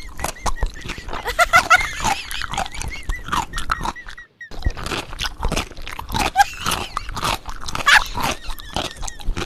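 Close-up eating sounds: a person biting and chewing a mouthful of marble cake, a dense run of mouth clicks and crunches, with a brief break about four seconds in.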